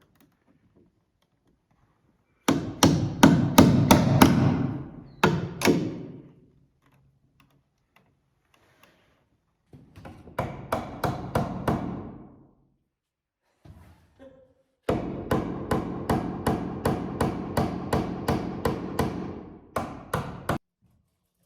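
Hammer blows in three quick runs, about three strikes a second, with short pauses between the runs.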